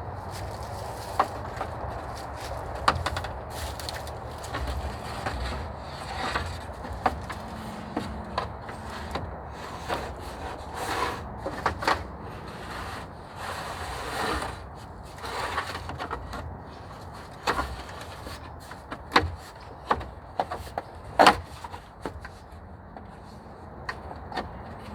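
Sticks and branches being handled in shelter building: irregular wooden knocks and cracks mixed with short rustling swishes. A few sharp cracks stand out near the end.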